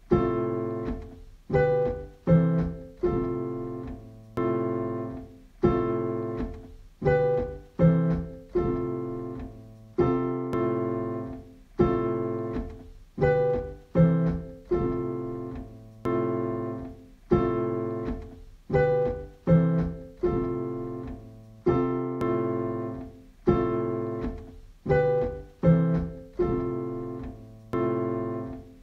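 Background piano music: notes and chords struck one after another and left to fade, in a slow pattern that repeats every few seconds.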